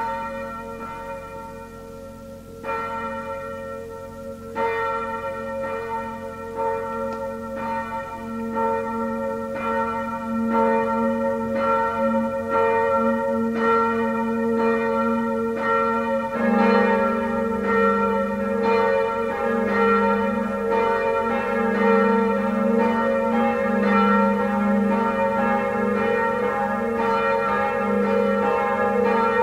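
Full peal of a six-bell bronze Schilling set cast in 1958, tuned A♭–B♭–D♭–F–A♭–B♭, building up as the bells start swinging and join in one after another. The ringing grows louder in steps, and a deeper bell comes in about halfway through.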